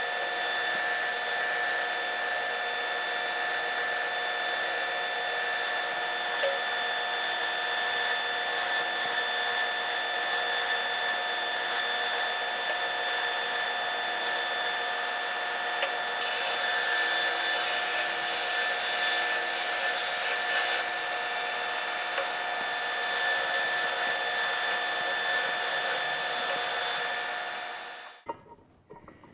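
Electric bench belt grinder running with a steady motor whine, while a new metal bushing is held against its abrasive belt. A rasping grind starts and stops repeatedly as the bushing's outside is taken down to fit its housing by hand. The sound stops abruptly near the end.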